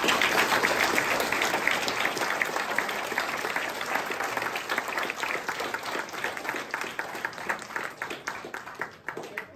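Audience applauding: many people clapping, loudest at the start and gradually dying away.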